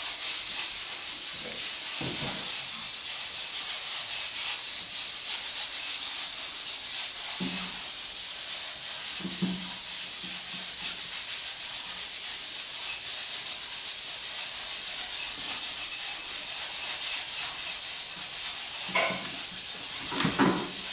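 Steady high-pitched hiss. A few brief, faint low sounds come about two seconds in, around eight and ten seconds in, and twice near the end.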